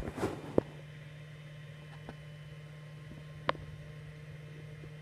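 3D printer humming steadily while it heats up before printing, with a few short clicks, the sharpest about three and a half seconds in.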